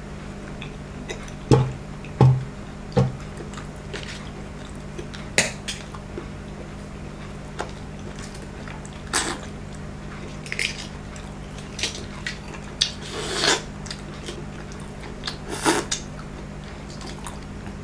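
Close-up mukbang eating noises: a man sniffling and wiping his nose with a tissue, with three sharp breathy sounds about two seconds in. These are followed by scattered small clicks, slurps and mouth sounds as he eats a balut egg near the end.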